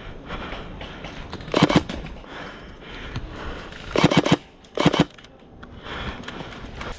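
Airsoft gun firing three short rapid-fire bursts, about a second and a half in, around four seconds in, and just before five seconds.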